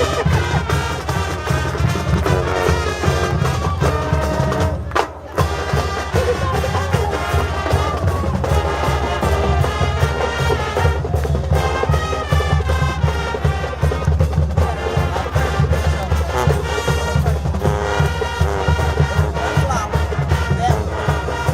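High school marching band playing: brass over a drum line, with a brief pause about five seconds in before the full band comes back in.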